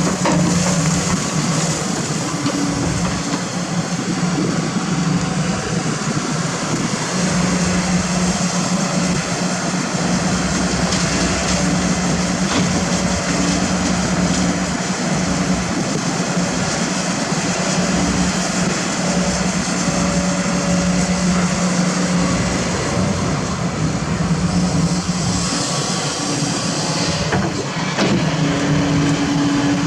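Diesel engine of heavy earthmoving machinery running steadily under load, its hum shifting a little in pitch; near the end the hum steps up to a higher pitch as the engine revs up.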